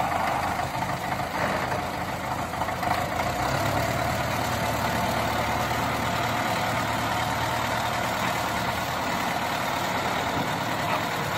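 MTZ-82 tractor's four-cylinder diesel engine running steadily as the front loader backs away with its bucket raised.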